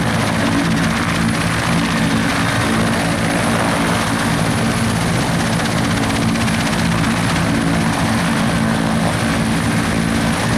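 Mi-171 twin-turbine helicopter running steadily, a loud continuous noise with several low steady tones beneath it.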